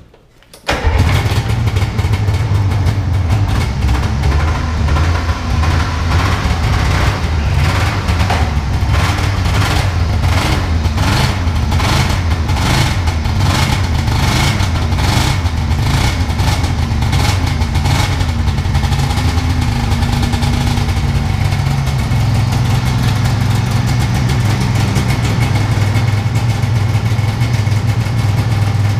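Vintage Yamaha SRV snowmobile's two-stroke engine cold-started by pull cord, catching about a second in. It then runs loudly, surging regularly for several seconds in the middle before settling to a steadier idle.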